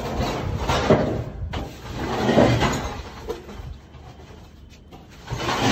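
Scraping and knocking of a thin metal rod probing among objects in a narrow gap between walls, in several irregular bursts with a sharp click.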